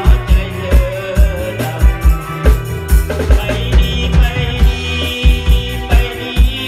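Live band playing through PA speakers: a singer sings into a microphone over a drum kit with a steady kick-drum beat, electric bass, guitars and keyboard.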